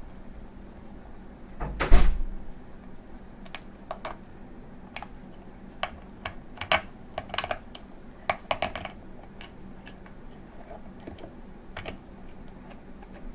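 Hands fitting parts into a clear acrylic case: one louder knock about two seconds in, then a run of small plastic clicks and taps.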